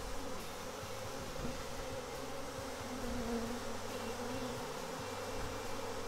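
A large swarm of honey bees humming steadily as the mass of bees crawls into a hive box.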